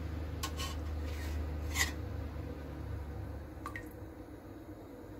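Metal spoon clinking and scraping against a stainless steel pot of cooled broth while lifting off congealed fat: a few light clinks, over a low hum that fades out about three seconds in.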